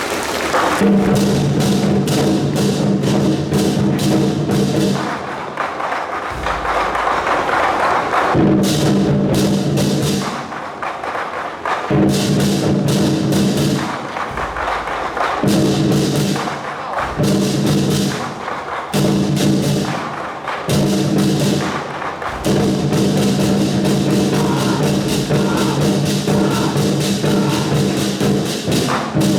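Loud temple procession music with drums and other percussion; its held low tones break off and resume every second or two.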